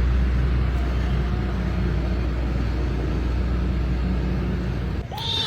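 Steady low rumble that cuts off suddenly near the end, when a kitten begins to meow.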